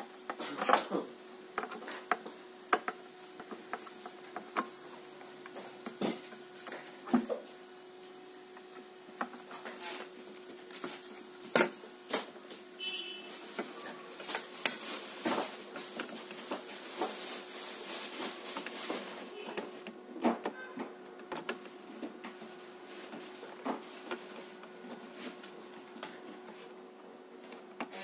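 A screwdriver and small screws clicking, tapping and scraping against a metal mounting plate and the perforated metal cases of switching power supplies, in irregular clicks over a steady low hum.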